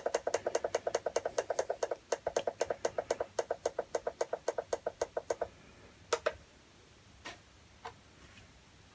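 Rapid, evenly spaced clicks with a short ringing tone, about eight a second, as a VFD keypad button is held to step a parameter value, stopping about five seconds in; then three single button clicks.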